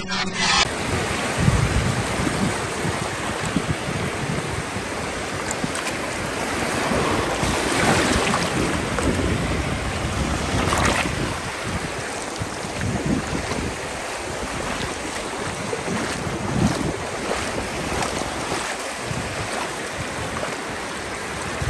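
Small waves washing in over shallow water at the shore, rising and falling in slow swells, with wind rumbling on the microphone.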